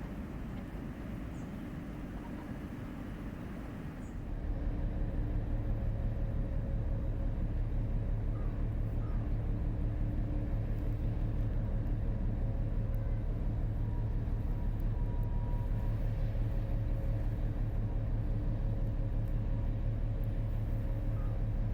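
Diesel engine of a passing Rhine inland vessel running steadily: a low rumble with a hum, which grows louder about four seconds in and then holds.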